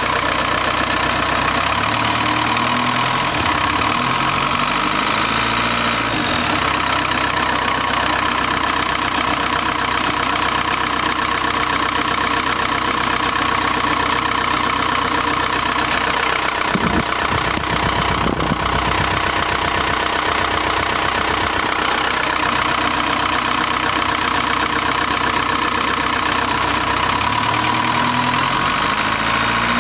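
Cummins 4BT four-cylinder turbo-diesel engine running steadily at idle. Its pitch rises a few seconds in and again near the end.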